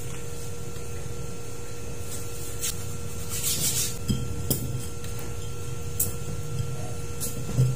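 A man eating by hand at a table: a few light taps and clicks against a ceramic plate, a short rustle just past three seconds in, and a soft thump near the end, over a steady background hum.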